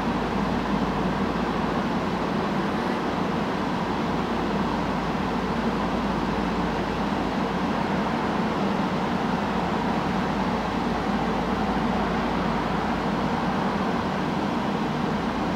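Steady low drone of a river towboat's diesel engines pushing loaded barges upstream, even and unchanging throughout.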